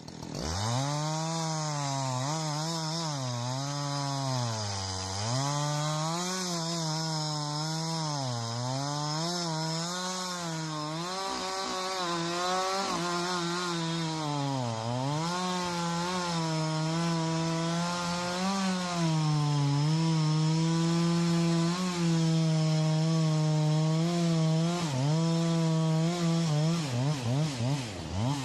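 Two-stroke chainsaw running at high revs while cutting wood. Its pitch sags and recovers again and again as the chain loads up in the cut, dropping deepest twice, then holds high before a few quick revs near the end.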